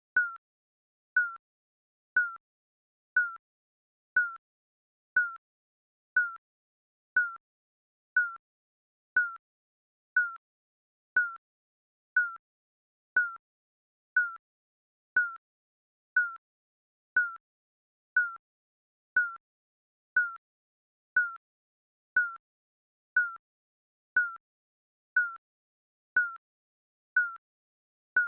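Digital countdown timer beeping once a second at an even pace: each beep is a short electronic tone that starts sharply and fades quickly, with silence between beeps.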